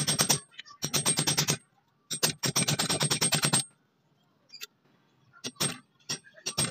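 Threaded steel rod jabbed rapidly up and down inside the rusty iron eye of an axe head held in a bench vise, rattling and clattering metal on metal. It comes in three bursts of quick strikes, about ten a second, then a pause with a few single clicks near the end.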